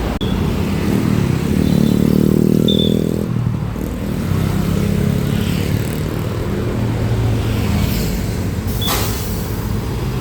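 A large bus engine running, its low drone swelling about a second in and easing off after three seconds, then a steady low hum with a sharp click near nine seconds; no horn sounds.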